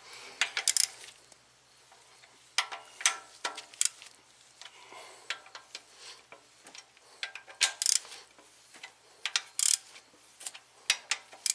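Hand ratchet clicking in short bursts as the camshaft bearing cap bolts on the cylinder head are loosened one after another, with scattered sharp metal clicks between the bursts.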